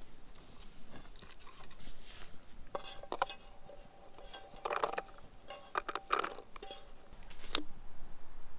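Irregular clinks, knocks and scrapes of a nonstick frying pan being handled, with chopped onion moved around in it. The pan rings briefly a few times.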